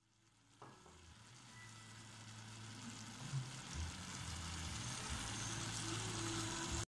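Chicken pieces, potatoes and carrots sizzling in a stainless steel pot with soy sauce just added. The sizzle starts faint and grows steadily louder.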